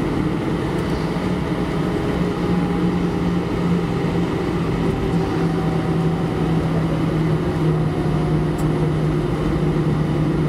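Cabin drone of an Airbus A319 taxiing after landing: the CFM56 engines at idle with a low rumble from the taxiway and a steady hum whose pitch dips slightly about halfway through.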